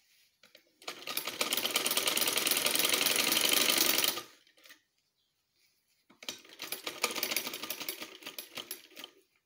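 Vintage straight-stitch sewing machine stitching a seam through cotton cloth in two runs. A steady, fast run of stitching starts about a second in and lasts about three seconds. After a short pause a second run follows, growing uneven and slowing before it stops near the end.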